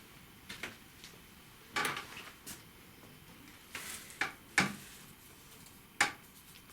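About eight sharp clicks and knocks at irregular intervals over a quiet background, the two loudest in the second half.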